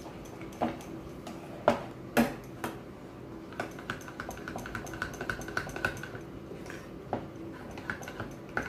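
Steel spoon clinking and scraping against small ceramic bowls while stirring spices into yogurt raita: a few sharp clinks in the first three seconds, then a run of quick light taps, and more clinks near the end.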